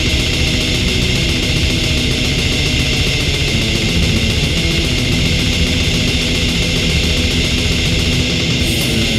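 Black metal track playing: a dense, steady wall of distorted guitar and drums. Near the end a sharp, regularly struck high layer comes in.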